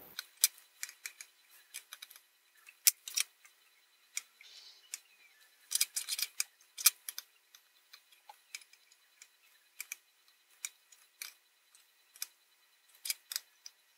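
Sparse, irregular light clicks and taps of metal tweezers and a soldering iron against a small circuit board and the tabletop while tiny surface-mount resistors are placed and soldered, with a quick flurry of taps about six seconds in.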